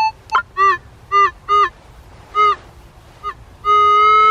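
About five short, goose-like honks in quick succession, each bending up and down in pitch. A faint click comes before and after them, and near the end a long, steady, horn-like tone starts.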